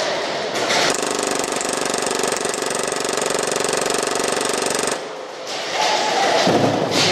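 Action Army AAP-01 gas blowback airsoft pistol firing a long full-auto burst, a fast steady rattle of the slide cycling that starts about a second in and stops abruptly about five seconds in.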